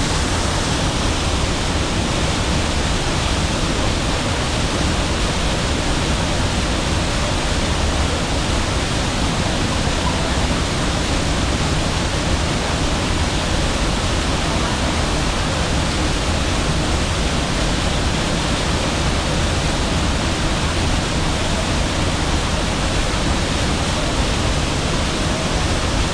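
Waterfall pouring steadily over rocks: a loud, even rush of white water with no breaks.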